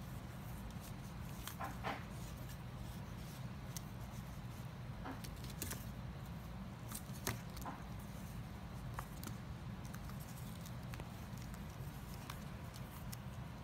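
Baby fox squirrels moving about in a cloth-lined cardboard box: scattered light scratches and taps of small claws on cardboard and fabric, the sharpest about seven seconds in.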